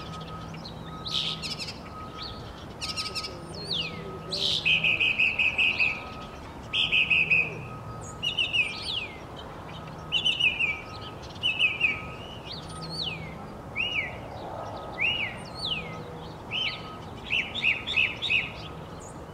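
Northern mockingbird singing: a string of varied phrases, each repeated a few times, with buzzy notes, falling slurred whistles and short chips, ending in a quick run of four or five short falling notes.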